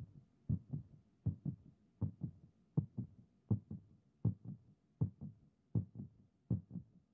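Heartbeat: a steady lub-dub, paired low thumps repeating about 80 times a minute.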